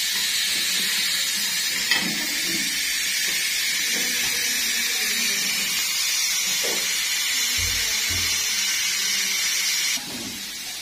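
Pressure cooker on the stove hissing steadily as steam escapes from its valve while it cooks under pressure. The hiss stops about ten seconds in.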